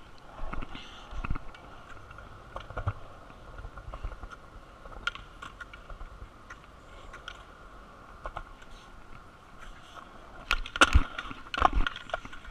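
Skateboard wheels rolling over concrete, a steady rumble with scattered clicks and knocks. Near the end come several loud sharp cracks and slaps as the board is popped into the air and lands.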